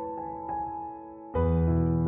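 Background piano music: soft sustained notes, then a louder chord with deep bass notes coming in about a second and a half in.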